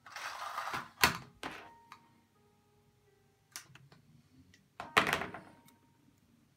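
A few sharp clicks and knocks of small hard objects being handled, with short rustling noise at the start and again after the loudest click about five seconds in.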